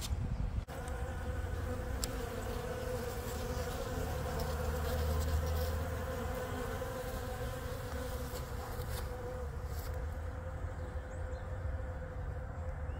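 Honey bees buzzing steadily as they fly around and feed on frames of comb honey set out for them. A low rumble swells around the middle.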